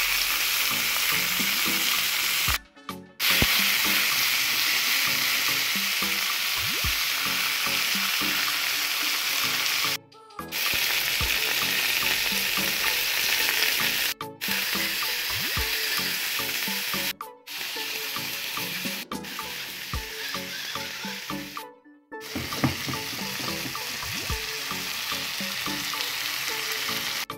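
Tomato slices and green peppers sizzling in oil in a stainless steel frying pan, a steady hiss that cuts out briefly about six times.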